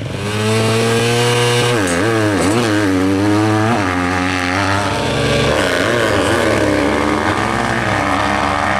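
Motocross bikes launching off the start gate: an engine held at steady high revs, then falling and climbing in pitch several times as it shifts up through the gears while accelerating away. A second bike's engine joins about five seconds in.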